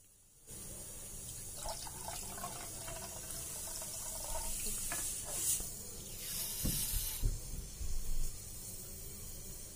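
Water pouring from a glass cup into milk in an aluminium pot, splashing most strongly a little past halfway through, over a steady low rumble that starts suddenly about half a second in.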